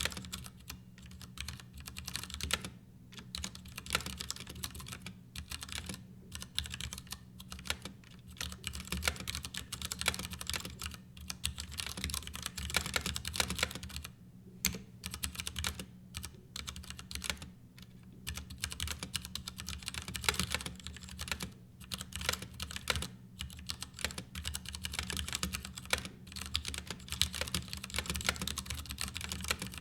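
Continuous typing on a Ducky Year of the Rat mechanical keyboard: a dense, irregular run of key clicks and keycap bottom-outs, with a few short pauses.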